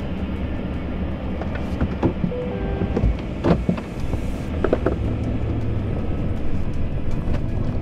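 Vehicle running, a steady low rumble with scattered clicks and knocks over it.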